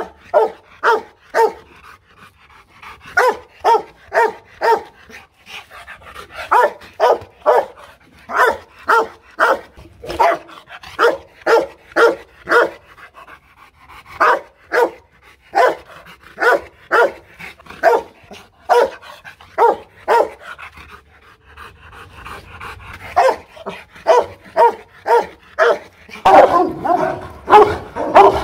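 Rottweiler barking in repeated runs of barks, about two a second, with short pauses between the runs. Near the end the barking gets louder and denser.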